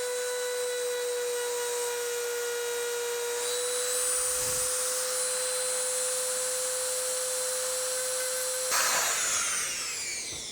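Small high-speed rotary tool running with a steady whine, then switched off near the end, its pitch falling as it winds down.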